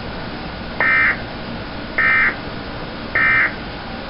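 Emergency Alert System end-of-message data tones from a TV speaker: three short, loud, buzzy bursts about a second apart over a steady hiss, closing a National Weather Service severe thunderstorm warning broadcast.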